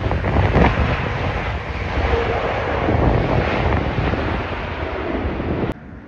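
Jet airliner passing low on its landing approach: a loud, steady rush of engine noise with wind buffeting the microphone. It cuts off suddenly near the end.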